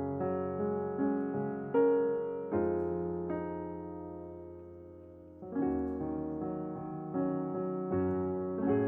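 Background music: slow piano chords, each struck and left to ring and fade, with a new chord about every second.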